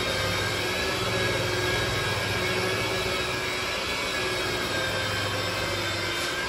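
Corded electric car polisher running steadily with a motor whine, its foam pad working cutting compound over painted bodywork.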